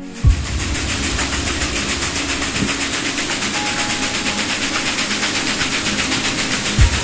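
Large metal waterwheel turning, with water rushing and splashing through it in a quick, regular pulse. Two low thumps stand out, one just after the start and one near the end.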